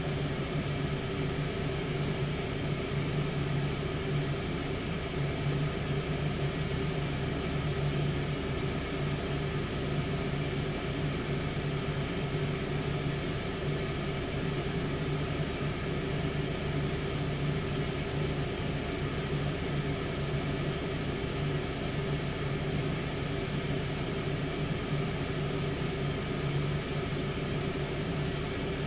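Tower air fryer oven running: its fan gives a steady, unchanging whirr with a low hum under it.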